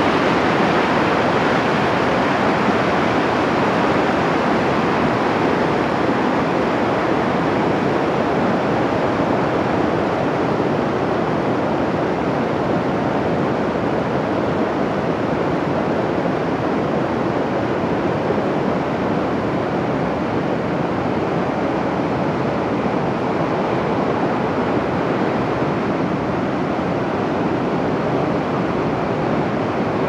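River water rushing over rocks through rapids and small cascades: a steady, unbroken whitewater rush.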